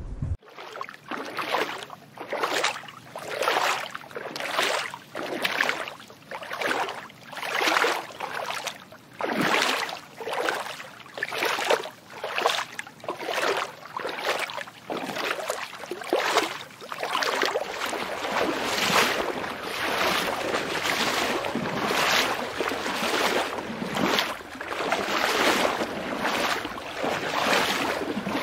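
Water splashing and churning in surges about once a second, from a crowd of fish thrashing at the surface while they feed.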